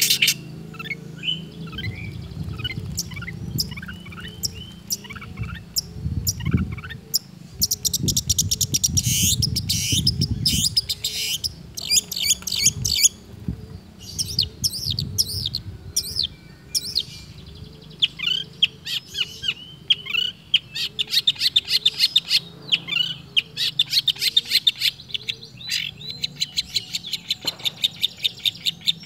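Long-tailed shrike singing a rapid, varied song full of mimicked calls of other birds: quick chirps, trills and runs of fast repeated notes, with hardly a break.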